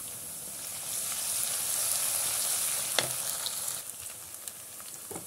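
Chopped onion, garlic, ginger and green chillies sizzling in hot oil in a non-stick kadai as they are stirred with a wooden spatula. The sizzle swells about a second in and settles lower toward the end, with a single sharp knock about three seconds in.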